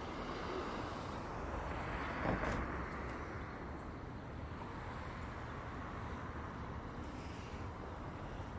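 Steady road traffic noise, with a single knock about two seconds in.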